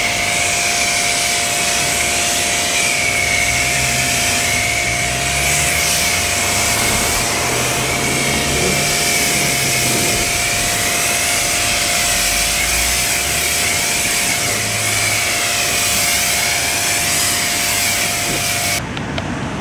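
Pressure washer rinsing a car: a steady hiss of spraying water over a steady machine whine that wavers slightly in pitch, cutting off abruptly near the end as the spray stops.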